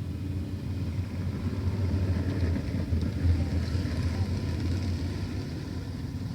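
305 sprint car engines running on the track, a steady low rumble.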